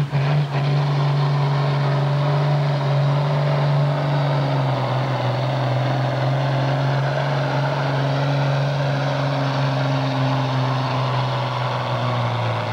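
A green John Deere farm tractor's engine running hard under full load while pulling the sled, a loud, steady low drone that eases a little about halfway through.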